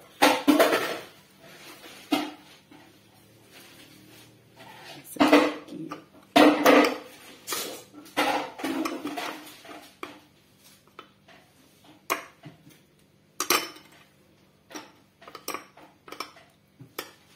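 Metal spoon knocking and scraping against a ceramic bowl as it spoons flour batter over cassava pieces, in irregular clinks, with the loudest clusters near the start, in the middle and a single strong knock later on.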